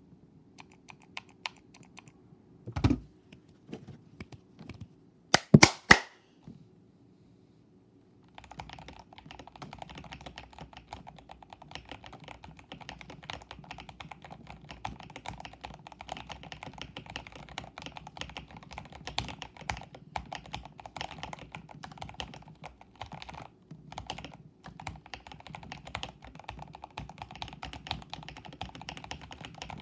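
A few scattered clicks and several loud thumps in the first six seconds, then steady fast typing on a modded mechanical keyboard (tape, PE foam and Holee-modded stabilizers) from about eight seconds in, a continuous stream of keystrokes with a deeper thock from the spacebar.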